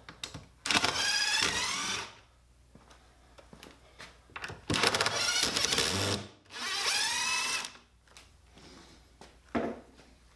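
Handheld power drill running in three short bursts, its pitch rising each time as the motor spins up. A single knock follows near the end.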